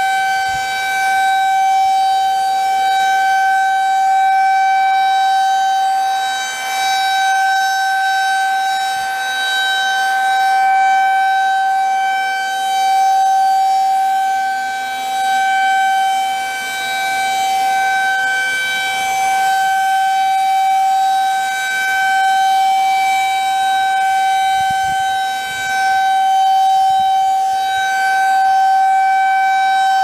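Federal Signal 2001-SRN rotating electromechanical warning siren sounding the steady Full Alert tone. The pitch holds constant while the loudness swells and dips slightly as the horn rotates.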